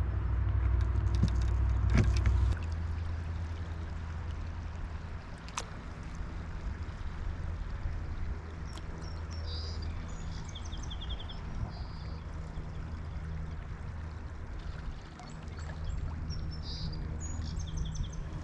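Water splashing and trickling from kayak paddling under a steady low rumble, with a few sharp ticks early on. Birds chirp in short trills around the middle and again near the end.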